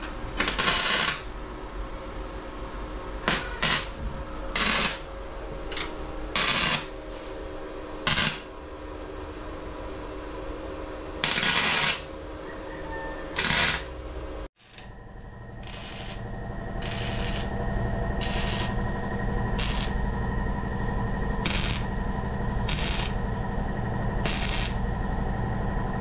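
A power tool or welder working metal on a truck frame in short bursts of noise over a steady machine hum, with an abrupt cut about halfway through. After the cut the hum is louder and the bursts come about once a second.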